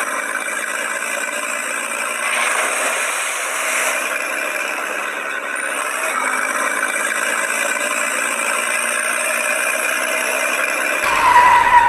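A tractor engine running steadily at idle, dubbed over the picture as a sound effect, with a brief louder, higher tone near the end.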